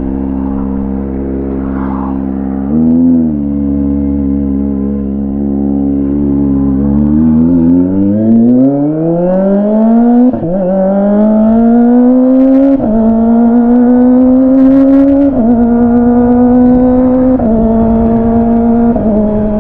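Kawasaki ZX25R's 250cc inline-four through an R11 Villain aftermarket exhaust: running steadily at low revs with a quick blip about three seconds in, then revving up in a long rising whine from about seven seconds in and holding high revs, dipping briefly a few times. Really loud, as it is in first gear.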